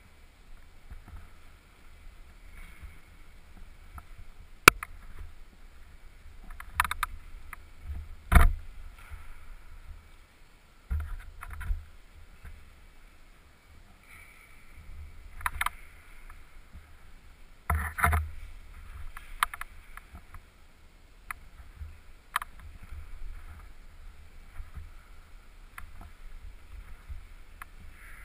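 Climbing sounds picked up by a helmet-mounted camera: irregular scuffs, scrapes and knocks of hands and shoes on the holds and wall, with a sharp click about five seconds in and the loudest knock around eight seconds in, over a low rumble of the camera housing being jostled.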